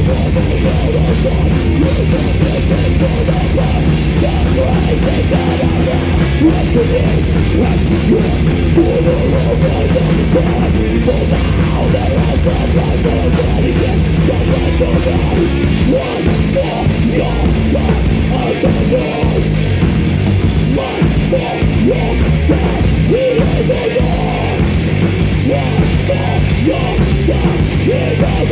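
Live heavy metal played loud by a full band: distorted guitars, bass and drum kit. From about halfway the low end stops and starts in short gaps, a stop-start rhythm.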